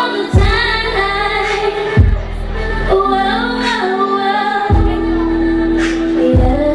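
R&B song with a woman singing over a backing track of held synth chords and deep bass hits, which land about every two seconds.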